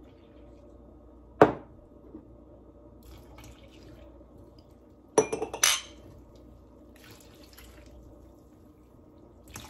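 Warm water poured from drinking glasses into a glass mixing bowl of flour and semolina, with soft pouring hiss at times. A glass clinks once about a second and a half in, and a quick run of sharp glass clinks comes about five seconds in.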